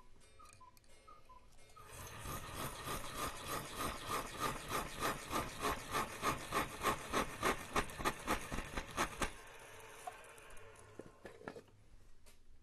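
Small hand saw cutting through a brass rod held in a watchmaker's lathe collet, parting off a plug for bushing a clock barrel: quick back-and-forth strokes, about three a second, that grow louder and stop abruptly about nine seconds in as the cut goes through.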